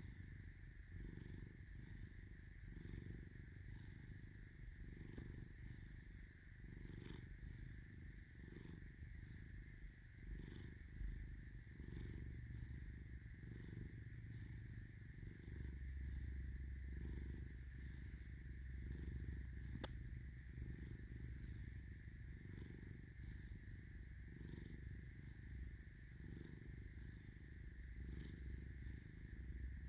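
Domestic tabby cat purring steadily while being stroked on the head, the low purr swelling and easing with each breath about once a second.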